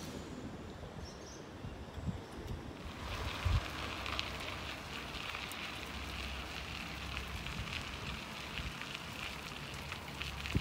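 Bicycle tyres rolling along a trail, a steady hiss with fine crackle from about three seconds in, over a low rumble of wind on the microphone.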